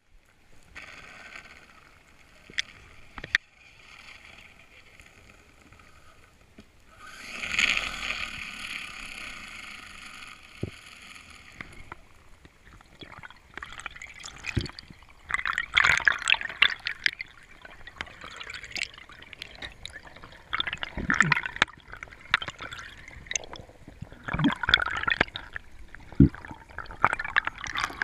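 Water splashing and gurgling, faint at first, then in irregular bursts from about halfway through.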